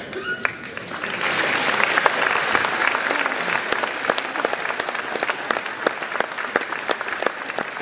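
Audience applauding, swelling about a second in and then going on steadily.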